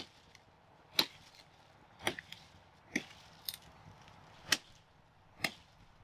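Sugarcane stalks being chopped with a large knife: sharp chops, roughly one a second, seven in all, a couple followed by smaller knocks.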